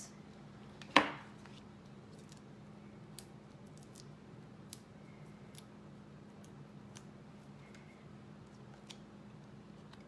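Quiet handling sounds of paper crafting on a desk: one sharp click about a second in, then a few faint light ticks as a paper label and adhesive are handled, over a faint steady hum.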